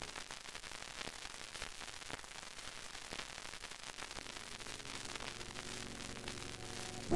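Steady static hiss with scattered faint crackles, an analogue video-noise sound effect.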